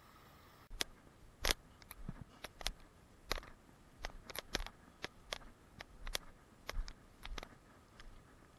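Footsteps through tall dry grass close to the microphone: a string of sharp, irregular crackles and rustles, several a second, starting about a second in.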